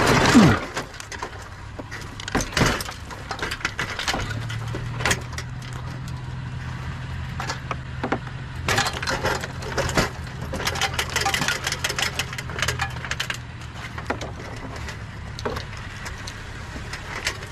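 Scrap pieces clattering and knocking as a trash pile is dug through to pull out buried ballast light fixtures. There are many irregular knocks and clinks. A steady low hum comes in about four seconds in and fades out near fourteen seconds.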